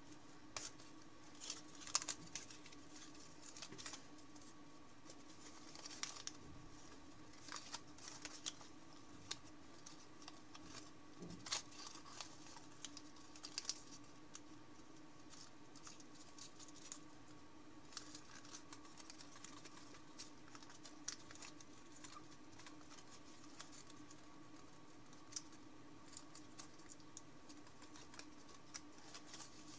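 Thin 50 g origami paper crinkling and crackling as fingers fold it and press in creases: scattered, irregular soft ticks and rustles over a faint steady hum.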